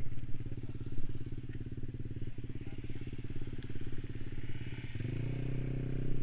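Yamaha 155 cc single-cylinder scooter engine running at low road speed with a steady pulsing note. The throttle opens and the engine gets louder about five seconds in.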